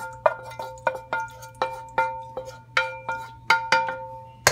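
Frying pan tapped repeatedly against the rim of a cooking pot to drain the last of its oil, about three sharp metallic taps a second, each one ringing briefly.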